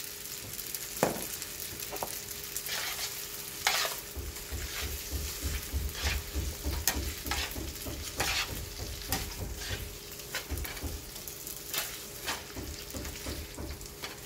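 Fettuccine sizzling in a frying pan while it is tossed with metal tongs, with repeated short clicks and scrapes of the tongs against the pan.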